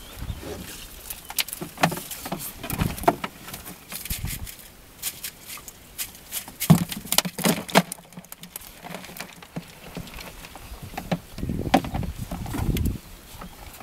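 Wet monofilament double-funnel fyke net being hauled into a small boat by hand: irregular pattering and clicking as the mesh and its hoops knock against the hull, with a few low handling rumbles.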